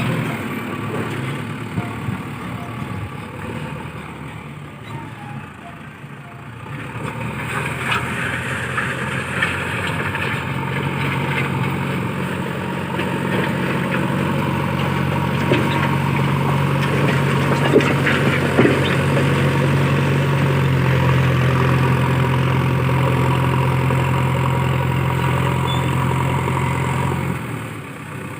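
JCB 3DX backhoe loader's diesel engine running: softer for the first few seconds, then louder and steady from about seven seconds in, with a few sharp knocks in the middle, and dropping away just before the end.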